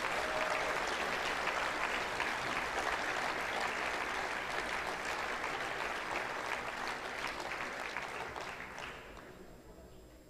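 Audience applauding: dense clapping that thins and dies away near the end.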